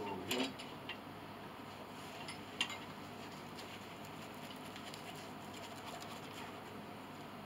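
A few light knocks and clicks from wooden pinblock parts being handled and set in place: two soft ones near the start and a sharper click about two and a half seconds in. Between them there is only faint room noise.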